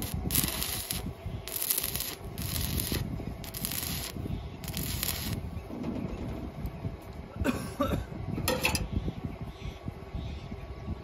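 Stick (arc) welder's arc crackling and hissing in short bursts, five times in the first five seconds and twice more, briefly, near eight seconds, as the electrode is struck against a steel beam on a truck body.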